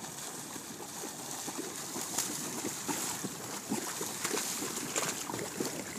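Dogs running through shallow seawater, their legs kicking up a quick, irregular run of splashes that grows louder as they come close.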